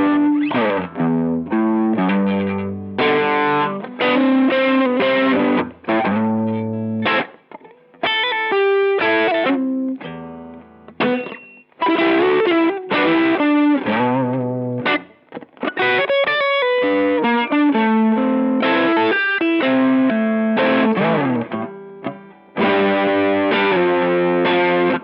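Electric guitar through a Boss SD-1 Super Overdrive pedal, playing overdriven chords and single-note riffs with a few brief pauses.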